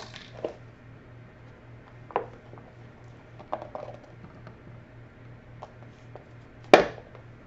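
Scattered light clicks and knocks of a plastic measuring cup being handled as sticky glace cherries are tipped out of it, with one sharper knock near the end. A faint low hum sits underneath.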